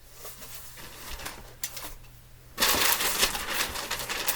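Packaging being handled while unpacking a box: a few light clicks and taps, then about two and a half seconds in a dense rustling and crinkling starts suddenly and keeps going.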